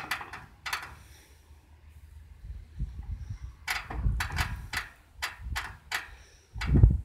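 Sharp metallic clicks and knocks from hand work on a Fortschritt combine harvester's engine: two near the start, then a quick run of about eight in the middle, over a low rumble; the engine is not running.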